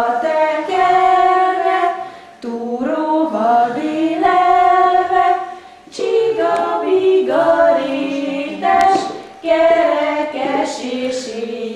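Unaccompanied group singing, mostly women's voices, in phrases of long held notes that break off every two to three seconds.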